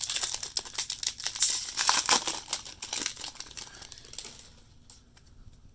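Crinkling and tearing of a foil trading-card pack wrapper being ripped open, a busy crackle that dies down about four seconds in.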